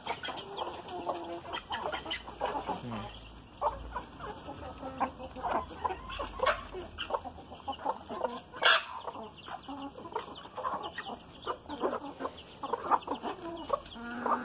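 Chickens clucking in a steady run of short, repeated calls, with one sharper, louder sound about nine seconds in.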